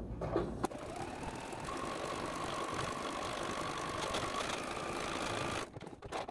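Juki DX7 sewing machine running steadily at speed, sewing a zigzag appliqué stitch, then stopping near the end.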